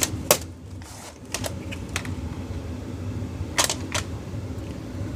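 Hand handling a plastic VHS clamshell case: about five sharp clicks and taps, the strongest near the start and a pair a little past halfway, over a low steady hum.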